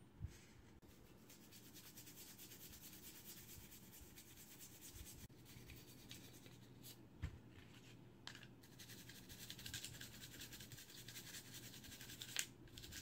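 Faint, rapid scratchy scrubbing of a small gun-cleaning brush on the oiled barrel and slide of a Taurus 9mm pistol, loosening carbon and grime after lubing. A couple of light knocks come through, one just after the start and one about seven seconds in.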